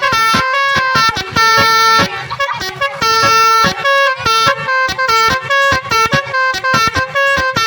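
Basuri multi-tone 'telolet' air horn playing a tune: a quick run of short notes stepping between several pitches, with longer held notes about one and a half and three seconds in.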